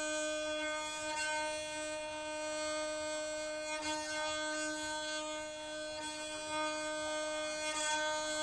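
Amplified bowed violin holding a single sustained drone on one pitch, rich in bright overtones, with faint breaks in the bowing about a second in, near the middle and near the end.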